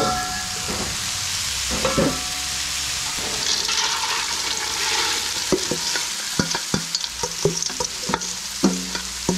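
Ground beef sizzling on a hot flat-top griddle in a steady hiss, while mixed vegetables are poured from a stainless steel bowl into a pot of V8 juice. Metal rings briefly near the start and about two seconds in, and over the second half a spoon scrapes and taps against the metal bowl in quick clicks.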